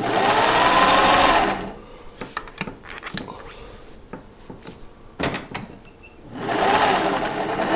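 1955 Singer Model 201 sewing machine with its direct-drive motor, purring as it stitches in two short runs, each speeding up and then slowing down under the knee control. A few light clicks come in the pause between the runs.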